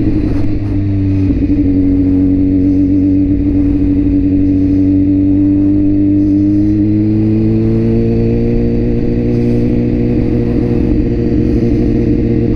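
BMW S1000RR's inline-four engine running at low revs as the bike rides along; its note eases slightly, then rises about seven seconds in as the rider opens the throttle.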